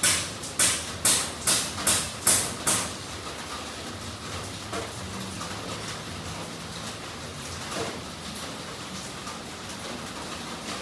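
A quick run of about seven short hissing swishes, a little over two a second, which stops about three seconds in, leaving a low steady background.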